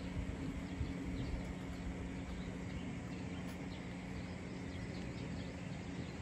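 Outdoor ambience: scattered faint bird chirps over a steady low hum.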